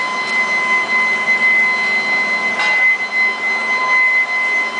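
A 175 kW induction melting furnace running under power: a steady high-pitched whine with a strong tone near 1 kHz and another an octave higher, over a constant noisy hum.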